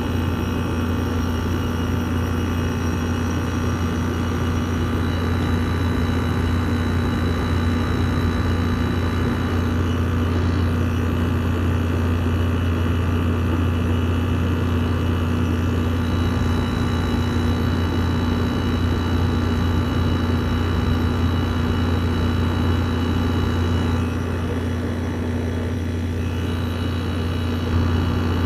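Frigidaire 5000 BTU window air conditioner running steadily, heard up close at the back of the unit: a loud, even hum from the compressor and condenser fan, with a few faint high whining tones above it.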